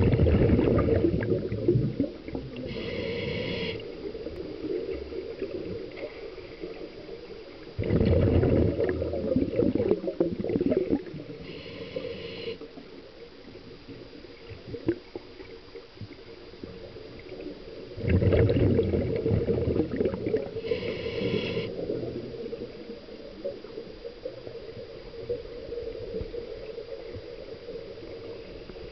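Scuba diver breathing underwater through a regulator. Exhaled bubbles rumble and gurgle in bursts of two to three seconds about every ten seconds, three times. Between the bursts comes a short whistling hiss, once in each cycle.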